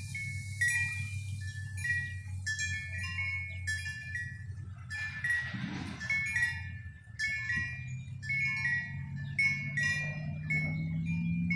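Tubular wind chime ringing as it sways in the breeze: its tubes are struck irregularly, several times a second, giving overlapping bell-like tones. A low hum runs underneath and rises slowly in pitch over the last few seconds.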